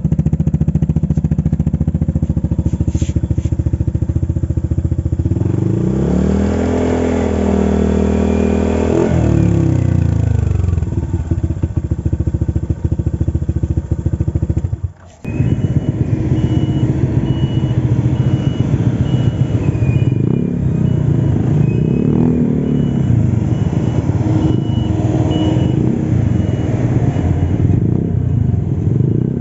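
Honda ADV 150 scooter's single-cylinder engine through an Akrapovic-branded 430 mm long muffler, idling, then revved once to a held higher pitch for a few seconds and dropping back to idle. After a sudden break about halfway, the engine runs with its pitch rising and falling, as when the scooter is ridden.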